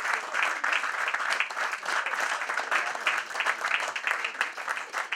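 An audience applauding, many hands clapping steadily and densely.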